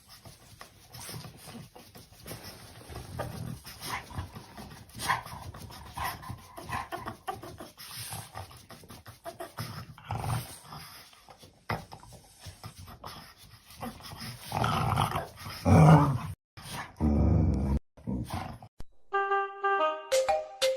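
A dog making noises in short, irregular bursts, loudest a few seconds before the end and broken by two sudden cuts; music with clear notes starts near the end.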